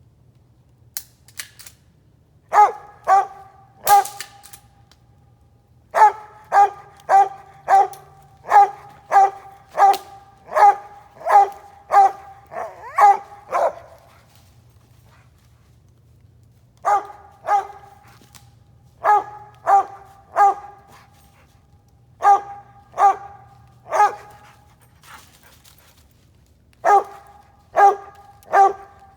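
Mountain Cur tree-barking at a squirrel treed in a big hickory: short, evenly spaced barks about two a second, in bouts of several barks separated by pauses of a few seconds.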